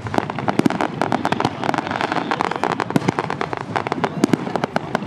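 Fireworks display: aerial shells bursting in a dense run of crackles and pops, with louder bangs scattered throughout.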